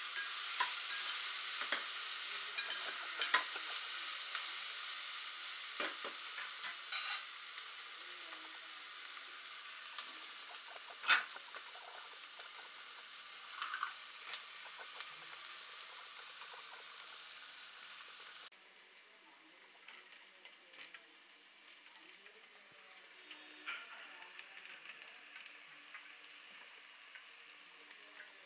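Sliced onions sizzling as they fry in hot oil in a metal pan, stirred with a spatula that knocks and scrapes against the pan now and then, one knock sharper than the rest about a third of the way in. About two-thirds through the sizzle drops abruptly and carries on quieter.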